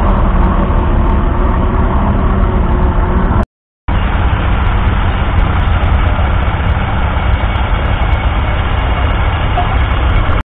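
1942 Fordson Model N's 4.4-litre four-cylinder petrol/TVO engine running steadily, broken once by a short silent gap about three and a half seconds in.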